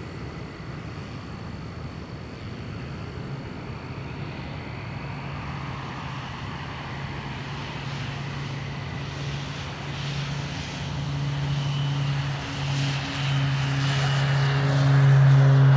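Cessna Citation 525 twin-turbofan business jet passing overhead in flight, its jet noise growing steadily louder. A low, steady hum with several overtones builds up over the second half and is loudest near the end.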